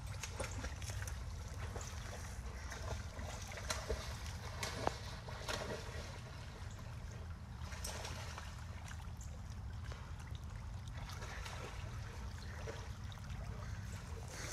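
Small waves lapping and trickling gently, over a low steady rumble, with a few faint knocks or splashes about four to five seconds in.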